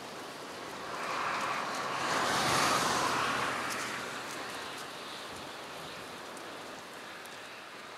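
Steady outdoor hiss, with a louder rushing sound that swells up about a second in, peaks near three seconds and fades away by about five seconds.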